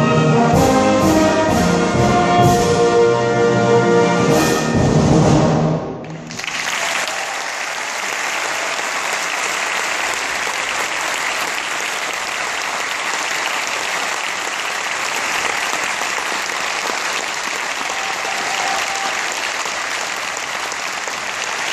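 A high school wind band of brass, saxophones and clarinets plays the closing bars of a piece, ending about six seconds in. Steady audience applause follows and continues.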